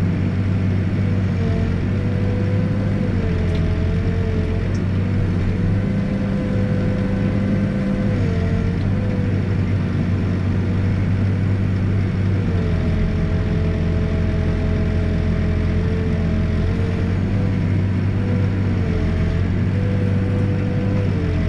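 Backhoe's diesel engine running steadily, its pitch dipping briefly every few seconds as it takes load and then recovering.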